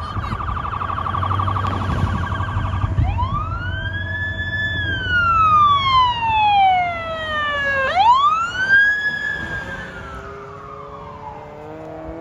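Police vehicle's electronic siren on an emergency run. It gives a rapid warble for the first three seconds, then switches to a slow wail that rises and falls twice. It is loudest in the middle and fades near the end.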